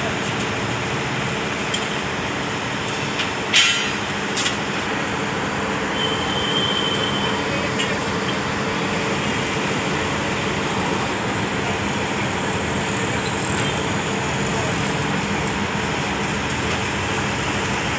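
Steady drone of a heavy construction machine's engine running, with two sharp clinks about three and a half and four and a half seconds in.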